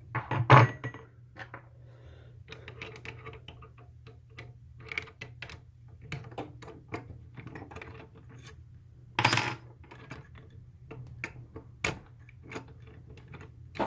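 Small metal clinks and rattles from handling a brass cartridge case at a mini lathe, with two louder clatters about half a second in and about nine seconds in.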